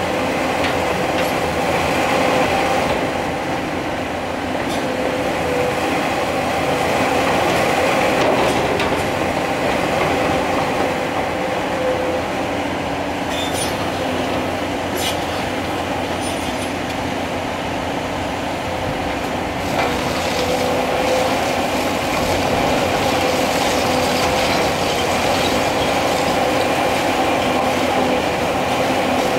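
Cat 336 Next Generation excavator working under load, its diesel engine and hydraulics running with a steady whine, as its demolition attachment bites into and pulls at a concrete and brick wall, with scraping, crunching and a few sharp cracks and knocks.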